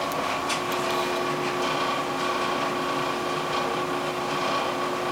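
Bosch dryer running with a steady mechanical hum and a rattle, with a few sharp clicks in the first second. The owner says the drum is perfectly balanced, so the rattle is not from an unbalanced load.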